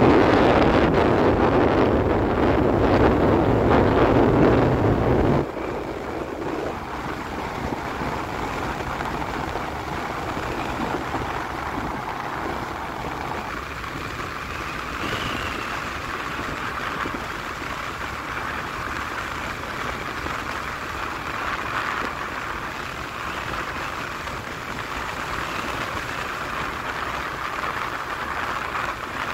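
Wind and road noise from a vehicle travelling along a highway. A heavy wind rumble on the microphone stops suddenly about five seconds in, leaving a steadier, quieter hiss for the rest.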